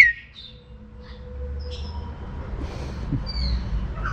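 Birds calling: a loud, sharp call falling quickly in pitch right at the start, then scattered short high chirps over a low steady rumble.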